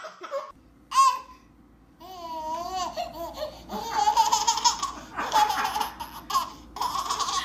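A young child laughing: a short squeal about a second in, a wavering vocal sound, then loud bouts of laughter from about four seconds in.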